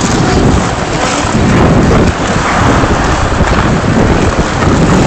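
Loud, steady rushing noise from a phone microphone carried by a moving skater, with indistinct voices in the rink mixed in.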